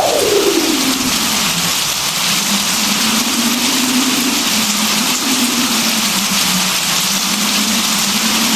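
Rain falling steadily, an even hiss, with a low hum underneath that slides down in pitch over the first two seconds and then wavers slowly, rising a little near the end.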